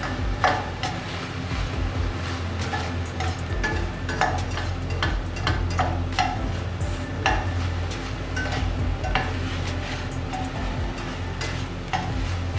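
Slotted spatula scraping and knocking irregularly against a stainless steel pan, stirring minced meat as it fries.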